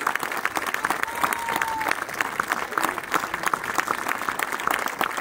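Crowd applauding, with one short whistle about a second in.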